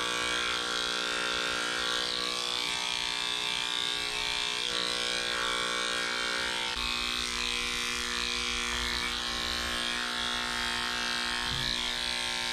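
Red electric dog-grooming clippers fitted with a number 7 blade, running steadily as they shave a dog's legs: a continuous motor hum holding one pitch.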